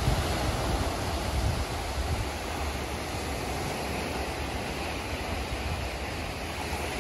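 Small waves washing in on a sandy shore, a steady hiss of surf. Wind rumbles on the microphone for the first second or two, then eases.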